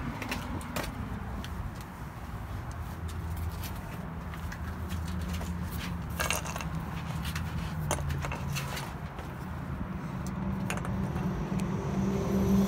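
Footsteps on asphalt with scattered light clicks and jingles of things being handled, over a steady low hum.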